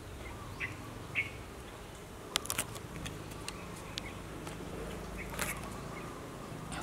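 A steady low hum with two short high chirps about half a second and a second in, and a cluster of sharp clicks midway.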